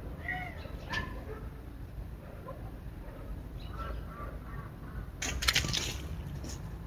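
Birds calling outdoors in short, arched chirps, on and off, over a steady low rumble. About five seconds in, a brief loud crackling burst.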